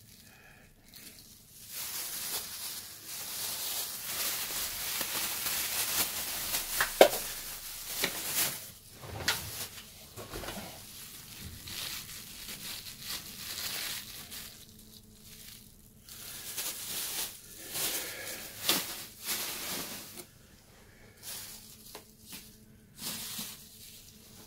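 Thin clear plastic bags rustling and crinkling as they are handled and crumpled, with a few sharp clicks. The crinkling is strongest over the first half and comes back in short spells later.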